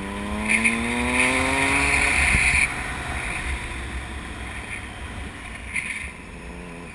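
A vehicle engine revving, its pitch rising for the first two seconds or so, over a low rumble. A loud hiss starts about half a second in and cuts off sharply before the three-second mark, then comes back briefly near the end.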